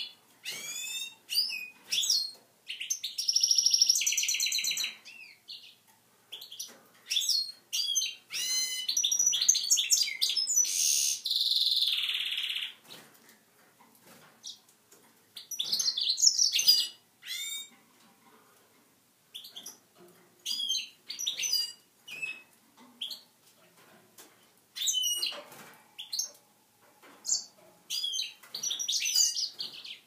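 Goldfinch × canary mule singing in its cage: bursts of high chirps and sweeping notes, with long rapid buzzing trills a few seconds in and again near the middle, broken by short pauses. It is a male's song aimed at the canary hens.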